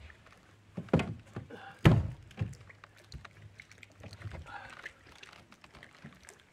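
A few sharp thumps and knocks on a bass boat's deck, the loudest about two seconds in, while a caught fish is handled at the bow.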